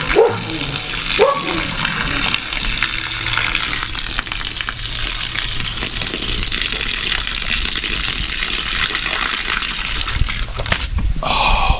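Water running out in a steady gush, the supply from the well pump flowing again after its wiring was repaired; it cuts off abruptly near the end.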